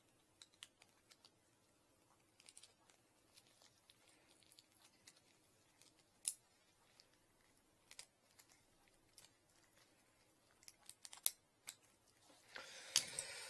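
Faint, scattered clicks and ticks of small metal parts of a rotating drain-jetting nozzle being handled with gloved hands, with a few sharper clicks and a burst of rustling near the end.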